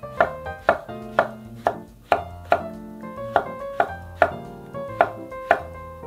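Chef's knife slicing shiitake mushrooms on a wooden cutting board, the blade knocking on the board about twice a second. Light background music plays underneath.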